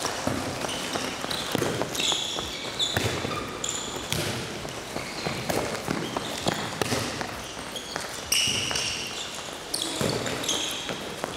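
Handball drill on a sports-hall court: shoes squeak sharply and often on the floor, with running steps and the knock of handballs being passed, caught and bounced.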